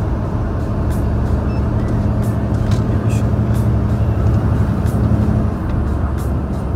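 Large truck's stock diesel engine pulling steadily under load, with road noise, heard from inside the cab through a slightly open window. About five and a half seconds in, the low engine hum eases off.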